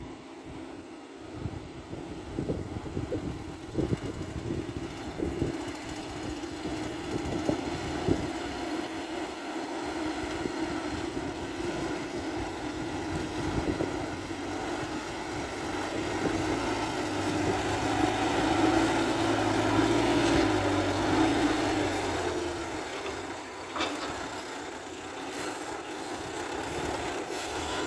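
Diesel engine of a light dump truck laden with soil, running under load as it drives up the dirt track and passes close by. The drone grows louder to a peak about two-thirds of the way in, then eases off, with a single sharp click near the end.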